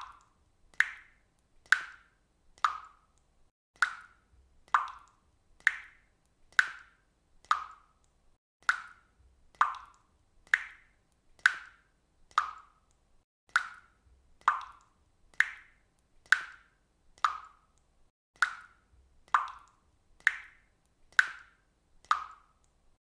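Water dripping from a faucet, single drops plopping into water at a steady pace of about one a second.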